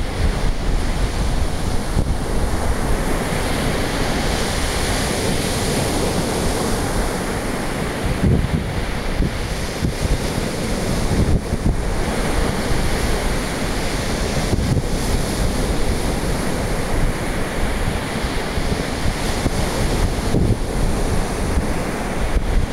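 Sea surf washing on the shore in slow swells, with wind buffeting the microphone as a low rumble.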